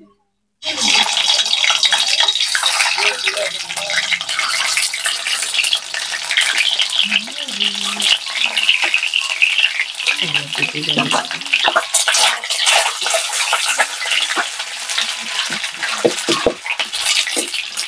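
Peeled boiled eggs frying in hot oil in an iron kadhai: a dense, crackling sizzle that bursts in suddenly under a second in as the first egg goes into the oil, and keeps on steadily as more eggs are added.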